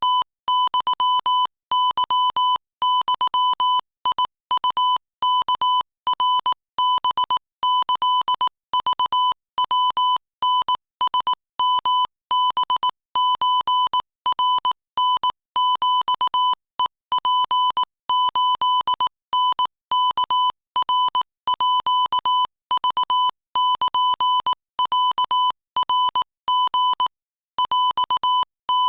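Morse code sent at 22 words per minute: a single steady beep tone keyed on and off in rapid runs of short dots and longer dashes.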